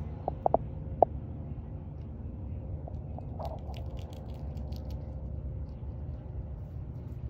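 Steady low rumble of a residential street outdoors. Three short sharp high notes come within the first second, and a brief patch of faint clicking comes about three and a half seconds in.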